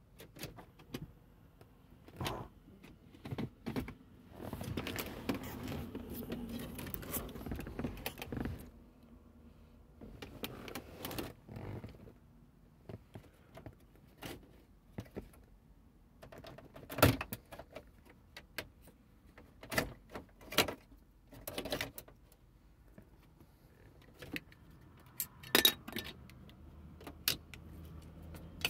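Car keys jangling on the ring at the ignition, with a steady mechanical run of about four seconds early on, then scattered clicks and knocks from hands working the dashboard and climate-control panel.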